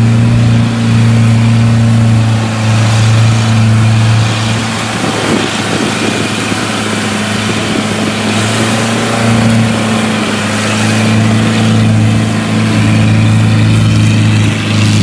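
Engine of a tracked rice-field carrier running steadily as it hauls a heavy load of rice sacks, a constant low drone.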